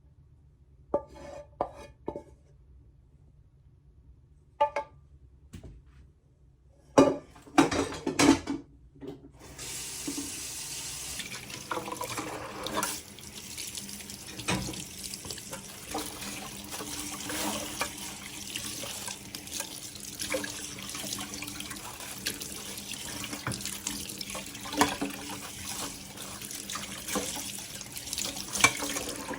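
A few light clicks, then several louder knocks, and from about nine seconds in, steady running water that goes on to the end.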